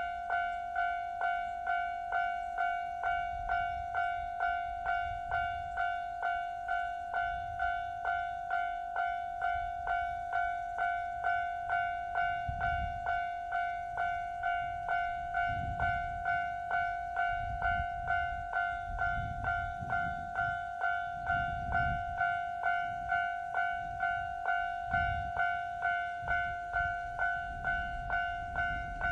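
Japanese railway level-crossing alarm ringing its two-tone bell steadily, about one and a half strokes a second. A low rumble comes and goes through the second half.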